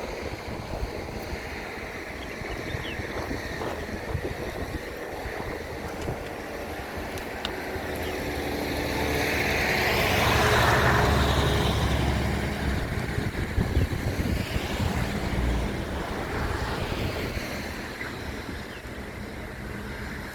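A motor vehicle passing, growing louder to a peak about halfway through and then fading, over wind on the microphone.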